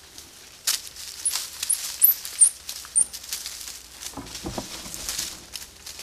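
Dry leaf litter crackling and rustling under a squirrel monkey moving on the forest floor. Five short, high chirps come about one to three seconds in, and there is a low thud a little after four seconds.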